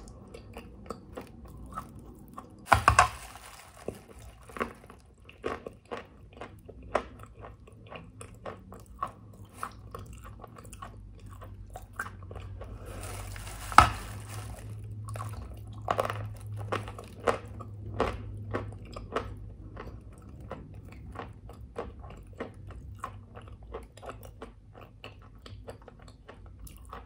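Someone biting into and chewing chalk close to the microphone: a run of small crunching, crackling chews, with a louder crunching bite about three seconds in and another about halfway through.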